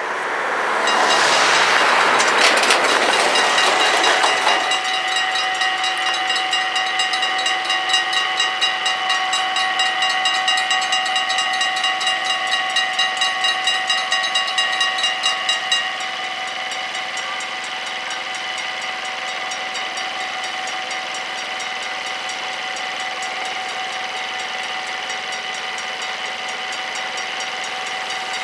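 Electric warning bells of a Dutch automatic half-barrier level crossing ringing with a rapid, even clang while the barriers come down. A loud rushing noise covers the first few seconds. About sixteen seconds in, the ringing drops to a steadier, slightly quieter ring.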